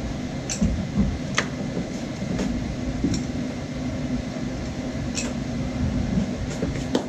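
Scattered light clicks and knocks of parts being handled in a pickup's engine bay, over a steady low machine hum.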